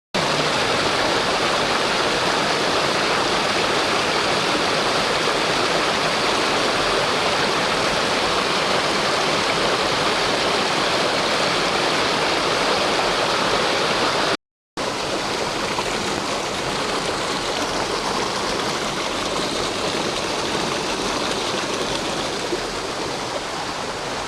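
Water rushing steadily over small waterfalls. There is a brief break about halfway through, and after it the rushing carries on a little quieter.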